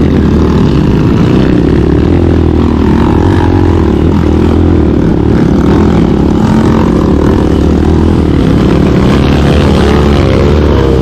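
Dirt bike with an open exhaust pipe and a 28 mm big-bore carburettor running under load, loud and close. Its pitch wavers and rises and falls with the throttle near the end.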